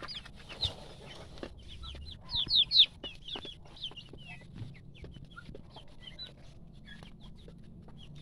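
A brood of native chicken chicks peeping: many short, high calls that fall in pitch, loudest in a quick cluster about two and a half seconds in.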